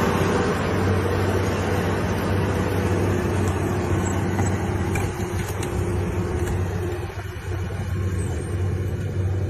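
A heavy vehicle's engine running steadily: a low hum over a rushing noise, easing off a little in the later part.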